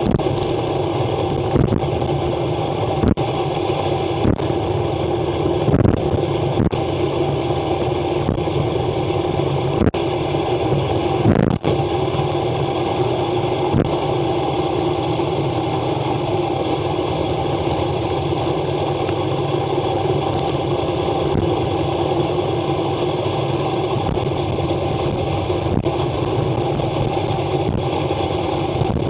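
Wind and road noise rushing steadily over the action camera on a road bike descending at about 75 km/h on a wet road, with a few sharp knocks, the loudest about eleven seconds in.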